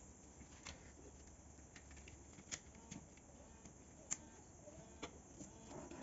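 Faint scattered clicks and rustling of a wiring harness and its plastic connectors being handled, over a low steady room hum.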